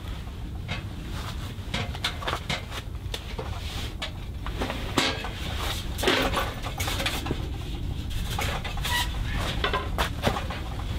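Sheet-metal stovepipe sections being handled and fitted onto a woodstove: scattered metal clicks, scrapes and brief squeaks, over a steady low rumble.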